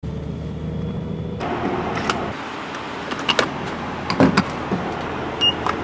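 Steady low hum of an idling vehicle, then a gas-pump fuel nozzle clacking and knocking as it is handled in a car's filler neck, several sharp clicks, the loudest about four seconds in.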